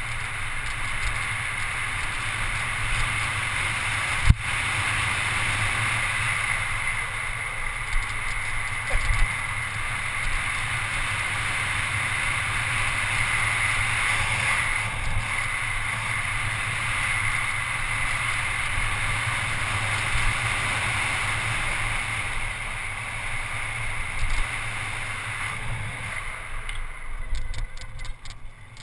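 Wind rushing over a GoPro HD's microphone and the tyres of a Scott Scale 10 mountain bike rolling fast on asphalt during a downhill run. There is a single sharp knock about four seconds in, and a run of light clicks near the end as the noise drops.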